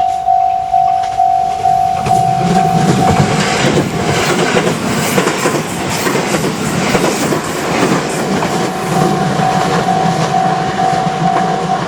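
Japanese level-crossing alarm ringing a single-pitched tone about twice a second. About two seconds in, a train passes over the crossing, its wheels clattering over the rail joints and drowning the alarm. The alarm comes through again near the end as the train noise eases.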